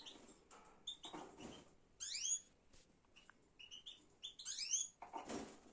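Small songbirds chirping, with two quick bursts of rapid sweeping high notes about two seconds in and again near the end.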